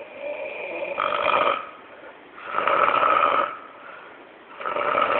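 Snoring: three loud snores about every two seconds, each under a second long.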